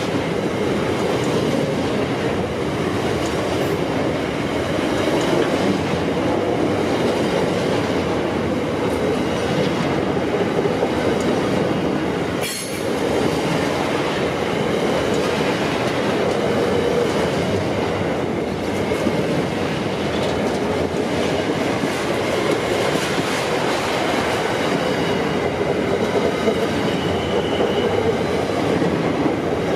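Container freight train wagons rolling past close by: a steady loud rumble of steel wheels on the rails, with a faint high wheel squeal at times. The sound dips briefly about twelve seconds in.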